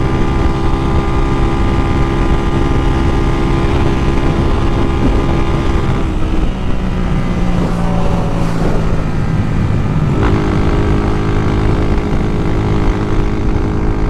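Honda Titan 2000 motorcycle with a 240cc single-cylinder OHC engine running hard at high speed, about 140 km/h, with wind rushing over the microphone. The engine note drops about six seconds in and comes back steady about ten seconds in.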